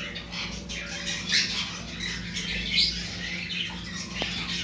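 Many small caged parrots calling at once, a scatter of short chirps and squawks, over a steady low hum.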